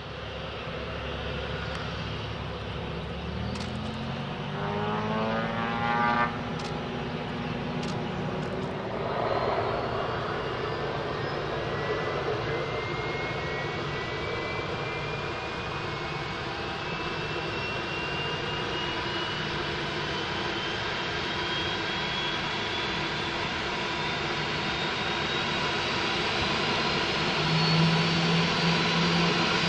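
Boeing 737-800's CFM56-7B jet engines running at taxi power: a steady jet rush with a high whine that rises slowly in pitch over the later part.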